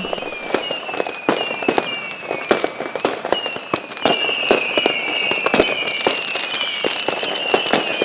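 Fireworks rockets howling: a run of high whistles, each falling a little in pitch over about a second, one after another, over a steady scatter of sharp crackling pops.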